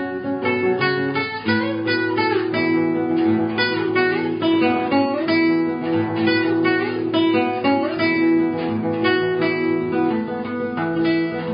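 Background music: plucked acoustic guitar with strummed chords and a held bass line.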